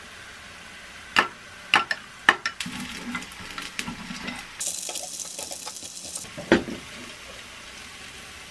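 A spoon clinking sharply against a glass a few times, then cheese sticks frying in a pan, with crackling and a burst of hissing sizzle about five seconds in. A single loud knock follows, likely chopsticks or a utensil on the pan.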